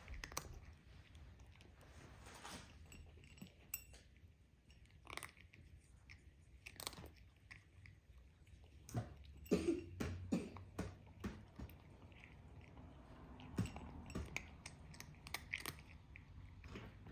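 Close chewing and crunching of waffle: irregular crisp crunches and bites, busiest about nine to eleven seconds in and again around fourteen to sixteen seconds.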